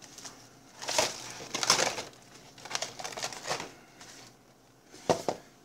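Paperboard takeout box and paper being handled and rustled in several short bursts as fried food is taken out of it.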